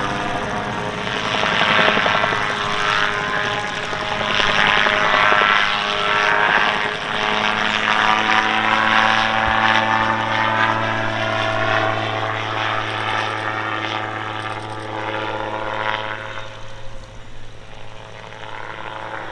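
Calidus autogyro's 115-horsepower Rotax 914 engine and pusher propeller running in flight during display manoeuvres. The pitch rises and falls in the first several seconds, then holds steady, and the sound grows quieter near the end.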